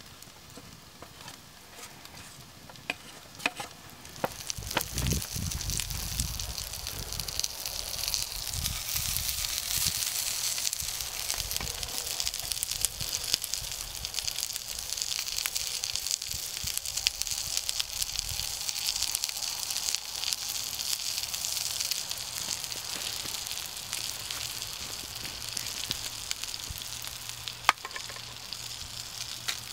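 Bacon and hash browns frying in a cast iron skillet. After a few light scrapes of the wooden spatula, a loud, steady sizzle starts about four seconds in and keeps on. One sharp click comes near the end.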